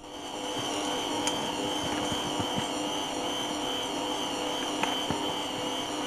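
Electric stand mixer running steadily, its dough hook kneading bread dough in the bowl: an even motor whine with a clear high tone over it.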